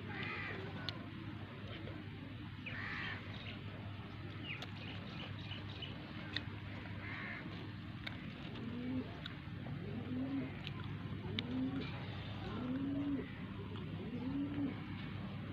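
A dove cooing outdoors: from about halfway in, a series of short, low coos comes roughly every second, over a low steady hum. A few brief higher bird chirps come earlier.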